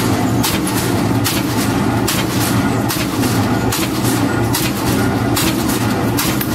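Expanded metal mesh machine running at speed, its cutting blades slitting and stretching sheet steel in quick regular strokes, nearly two a second, over a steady low hum from the machine's drive.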